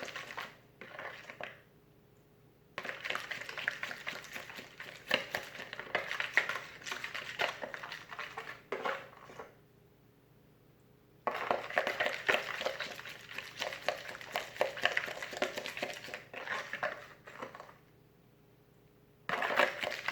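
A utensil stirring and scraping against a bowl, with many small clicks, as a slime mixture is worked. It comes in three bouts broken by short pauses, the mixture not setting and turning into a gloppy mess.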